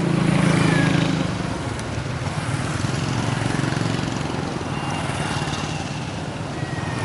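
A motor vehicle's engine running with a steady low hum, louder for the first second and a half, then settling to an even level.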